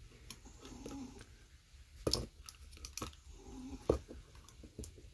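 Metal screwdriver clicking and scraping against the diecast cab of a toy fire engine while levering out a stuck part. There are a few sharp clicks, the loudest about two seconds in and just before four seconds.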